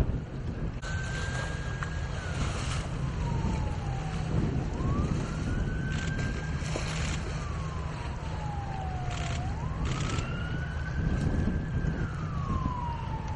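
A siren wailing in slow cycles: each rises over about a second to a held high note, then slides slowly back down, repeating about every four to five seconds, over a steady low rumble.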